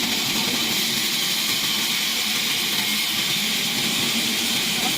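Power saw cutting through wood: a loud, steady hiss that holds level without any change in pitch.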